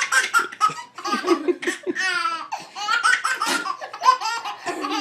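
A baby laughing in a long run of short bursts of giggles.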